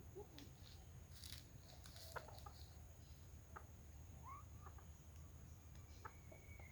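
Faint clucking of a junglefowl, with scattered short calls and clicks.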